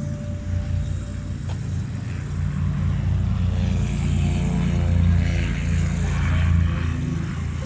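Light single-engine propeller plane's piston engine running at low power as it taxis along the runway. It grows louder about halfway through as it passes, then eases near the end.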